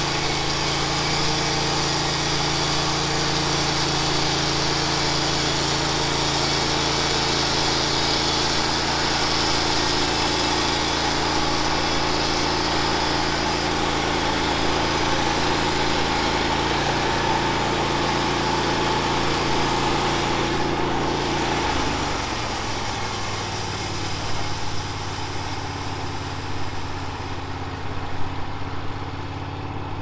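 Wood-Mizer LT15 bandsaw mill's engine running steadily at speed while sawing pine. About 22 seconds in it drops to a lower, quieter idle, and a few wooden knocks of boards being handled come near the end.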